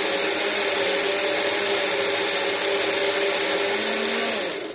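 Electric personal blender motor running steadily at full speed, grinding a jar of thick gravy into a fine paste. Near the end it stops and its whine dies away.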